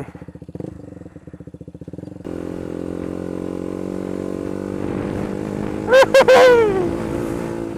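KTM Duke 125's single-cylinder four-stroke engine running at low revs with a pulsing beat, then about two seconds in opening up to a steady, higher-revving run.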